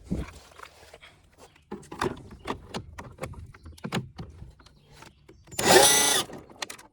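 Clicks and knocks of hard plastic trim and a tool being handled, then near the end a cordless drill/driver whirs for about half a second, backing out one of the center console's screws.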